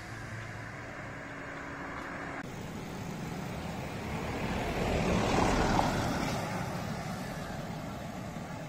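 A vehicle passing on the road, its tyre and engine noise swelling to a peak about five seconds in and then fading. Background music cuts off about two seconds in.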